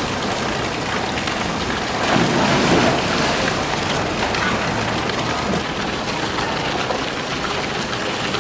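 Steady rushing, rain-like water noise, with a brief louder surge about two seconds in.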